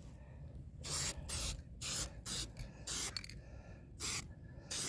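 Aerosol spray-paint can spraying white paint in several short, quick bursts of hiss, misting a light tack coat onto a plastic RC truck body.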